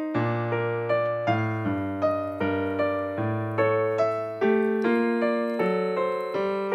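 Background piano music: a steady run of single notes over low held bass notes.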